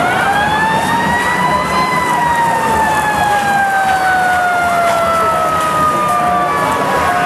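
Emergency-vehicle siren winding up for about two seconds, then slowly falling in pitch over the next few seconds.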